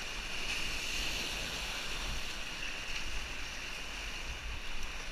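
Whitewater rapid rushing steadily around a kayak as it runs through, the river running high at about 2400 cfs.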